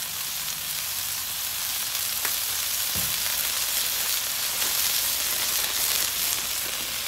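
Four smashed beef patties sizzling steadily in oil and fat on a hot griddle's ceramic non-stick cooking top.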